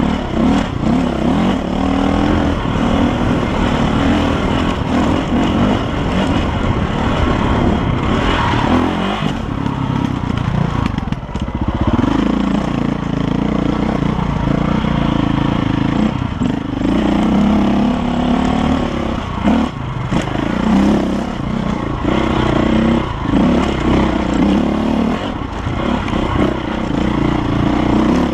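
KTM dirt bike engine running as it climbs a rough trail, its pitch rising and falling with the throttle and easing off briefly about eleven seconds in, with knocks from the bike bouncing over the ruts.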